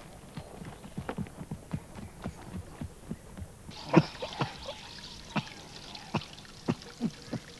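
A horse's hooves knocking at a walk, soft irregular steps about two or three a second. Just under four seconds in, the background changes to a faint hiss and sharper, more widely spaced knocks follow.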